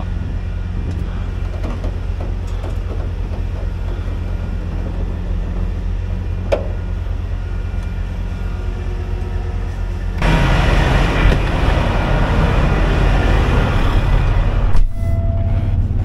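Heavy wrecker's diesel engine running steadily during winching, with a single sharp click partway through. About ten seconds in the engine grows louder and a rushing noise joins it for about five seconds, cutting off suddenly.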